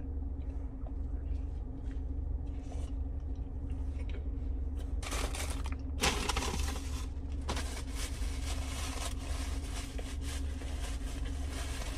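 Steady low hum inside a car's cabin while a man chews a chicken sandwich. About six seconds in, a sharp sound is followed by a louder hiss that lasts to the end.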